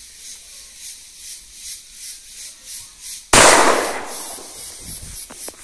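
A single shot from a sawn-off CBC 28-gauge shotgun a little over three seconds in: one sharp report that dies away over about a second and a half.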